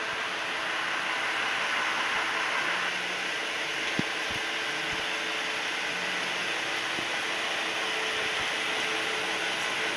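Amagi Railway diesel railcar running, heard from on board: a steady engine and running noise with faint engine tones that shift a couple of times, and a few short knocks from the wheels along the track.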